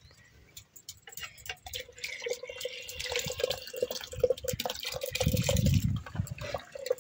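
Soaked basmati rice tipped into a pot of boiling water: splashing water begins about two seconds in, over the bubbling of the boil. A brief low rumble comes around five seconds in.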